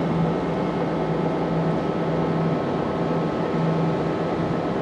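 A steady hum with hiss, under a low drone that fades in and out irregularly.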